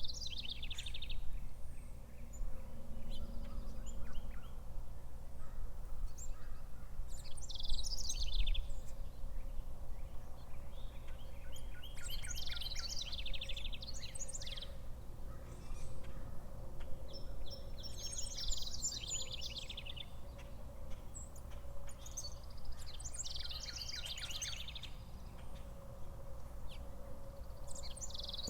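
A songbird singing short, high trilled phrases, each lasting about one to two seconds and repeated every four to six seconds, over a steady low hum.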